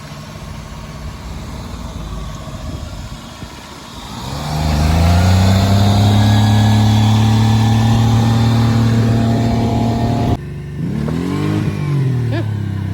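Maruti 800 car engine. It runs low for about four seconds, revs up and holds high, then after a sudden break near ten seconds its revs rise and fall.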